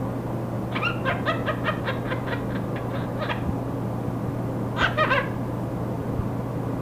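Quaker parrot imitating human laughter: a rapid run of short ha-ha calls, about five a second, then a louder burst of calls near the end. A steady low hum and hiss of static from the old recording run underneath.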